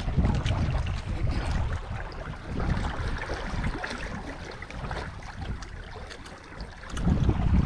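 Water rushing and splashing along the wooden hull of a dug-out outrigger sailing canoe under way, with a crackle of small splashes. Wind rumbles on the microphone, heaviest at the start and again near the end.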